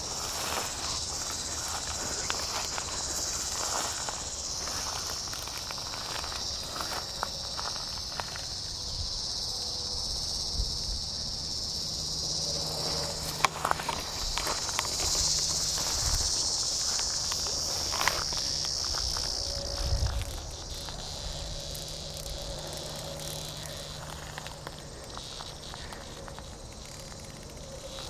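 Cicadas buzzing, a steady high drone that swells about halfway through and fades after about 20 seconds, with the scattered steps and brushing of someone walking through tall grass.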